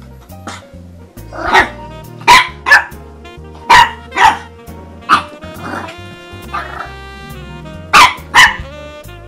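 French Bulldog puppy barking, about seven sharp barks, several in quick pairs, with a pause of about three seconds before the last two. Background music with a steady bass line runs underneath.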